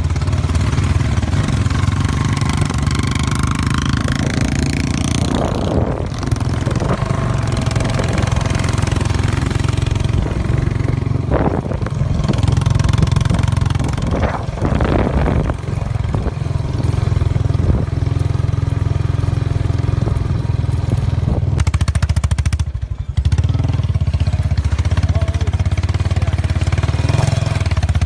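Royal Enfield motorcycle running steadily while ridden along a rough dirt road. A few sharp knocks come around the middle.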